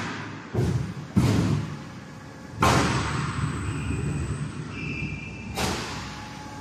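Sheet-metal duct-making machinery banging: four sudden thuds, each dying away over a second or so, with a faint high whine near the middle.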